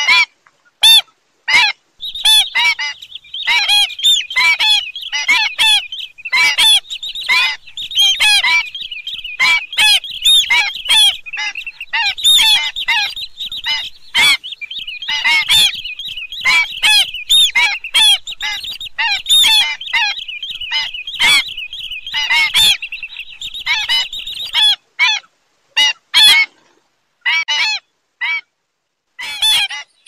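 A flock of white-headed (pied) stilts giving short, sharp yapping calls, over and over. From about two seconds in the calls overlap into a dense, continuous chorus, which thins back to separate calls near the end.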